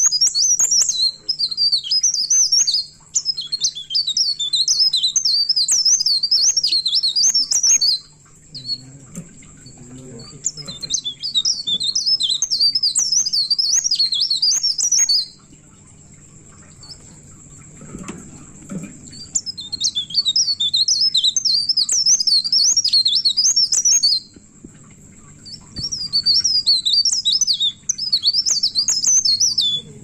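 Caged leaf warbler (pare-pare, cikrak daun) singing long, rapid, high twittering rolls in four bouts, broken by pauses of a second or two, with a steady thin high whine running underneath.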